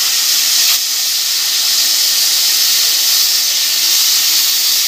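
Plasma cutter torch cutting metal: a steady, loud hiss of the arc and compressed air, with a brief falter a little under a second in. The machine is set to low amperage, giving a rough, incomplete-looking cut.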